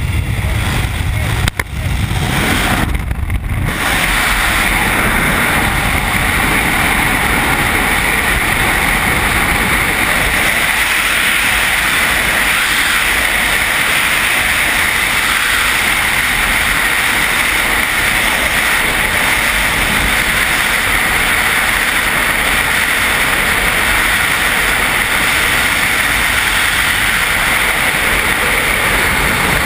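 Freefall wind rushing over a skydiver's helmet-mounted camera: a loud, steady rush of air noise. The first few seconds, at the exit from the aircraft door, carry more low rumble and two brief dips before the rush settles into an even sound.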